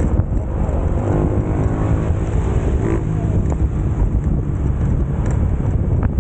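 Motorcycle on the move: engine running under heavy wind rumble on the microphone, with a pitched engine note standing out for about two seconds, starting a second in.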